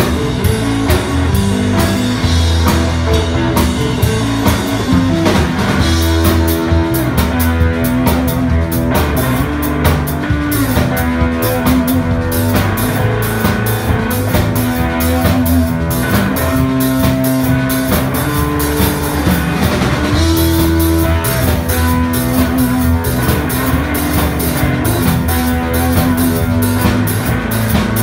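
Live blues-rock band playing an instrumental passage: electric guitars with long held notes, electric bass and a drum kit, loud throughout.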